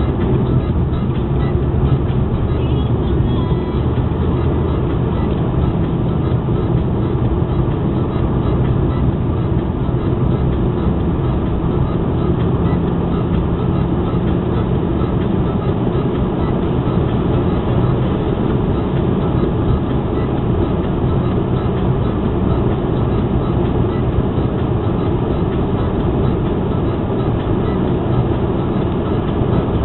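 Jaguar X-Type cruising at a steady speed: a continuous, even mix of engine hum and tyre and road noise.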